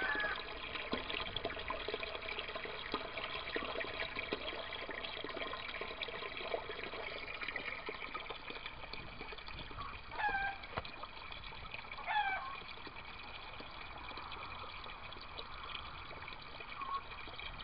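Water pouring steadily from a pump's return hose into a tank of water as it fills. Two short bird calls come about ten and twelve seconds in.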